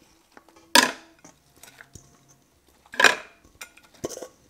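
Stainless steel mixing bowl and glass meal-prep dish clanking together as a thick oat mixture is scraped out of the bowl: three sharp clanks with a brief ring, about a second in, at three seconds and just after four, with softer scrapes and clicks between.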